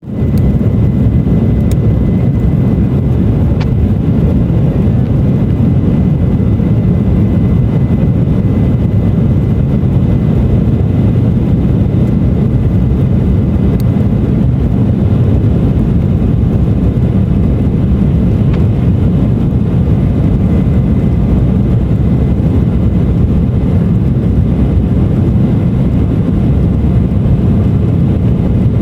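Embraer E-170 airliner's twin GE CF34-8E turbofan engines running, a steady loud rumble with a faint high whine.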